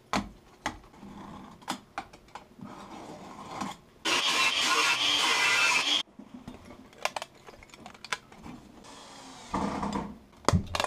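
Light clicks and knocks of stainless-steel engine parts and sheet metal being handled on a workbench, with a steady rushing noise of about two seconds, the loudest sound, that starts and cuts off suddenly about four seconds in.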